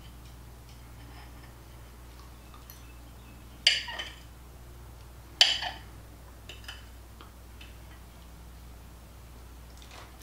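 Metal fork clinking against a plate twice, about a second and a half apart, as a bite of cream pie is cut on it, followed by a few fainter ticks. A low steady hum runs underneath.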